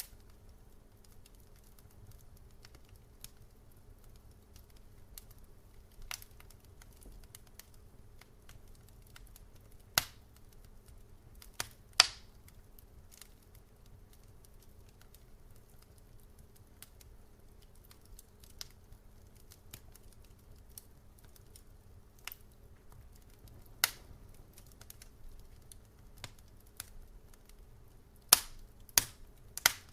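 Wood fire burning in a fireplace, crackling and popping irregularly over a low steady rumble, with a few loud sharp pops, several close together near the end.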